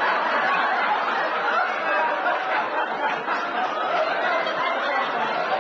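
An audience laughing, many voices together at an even level.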